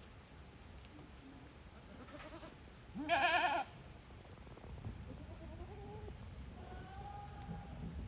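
Goats bleating: one loud, quavering bleat about three seconds in, with a faint call just before it and two quieter, drawn-out bleats later on.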